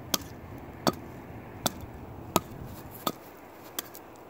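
A hatchet chopping into an upright log of firewood: six sharp chops about three-quarters of a second apart, the last two lighter.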